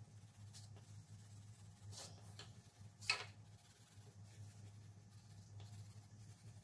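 Faint scratching of a wax crayon on paper as an area is coloured in, with a few short, slightly louder strokes, the clearest about three seconds in. A low steady hum sits underneath.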